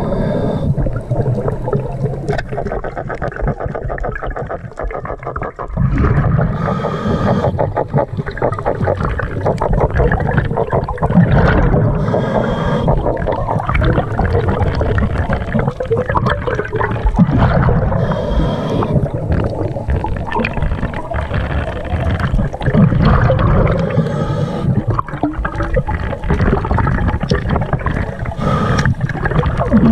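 Scuba diver breathing on a regulator, heard through an underwater camera housing: muffled rumbling and gurgling of exhaled bubbles, with a short hiss of inhalation about every five to six seconds.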